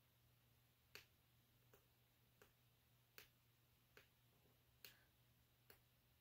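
Faint clicks of fingernails picking at a roll of tape, trying to lift its stuck end: about seven soft ticks, a little under a second apart.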